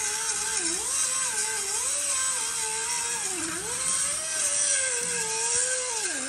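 Hand-held power tool running with a wavering whine over a steady hiss; the whine dips in pitch about three times, as if the tool is briefly loaded, then recovers.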